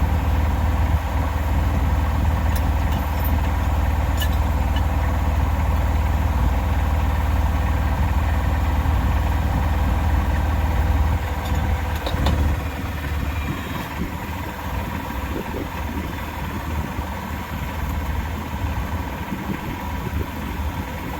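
Engine idling steadily with a deep, even hum. About eleven seconds in, the deepest part of the hum drops away and the sound turns quieter and more uneven.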